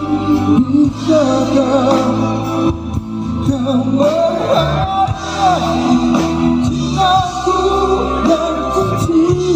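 Live rock band playing over a PA, with a male lead vocal carrying a wavering melody.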